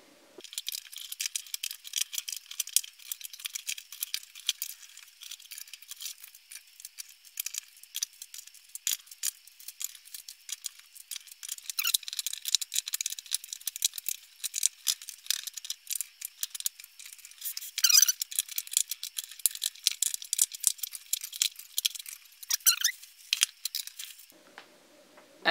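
Rapid, irregular clicking and rattling of 18650 lithium-ion cells being pushed into plastic cell holders and knocking against one another, with a few louder clacks along the way.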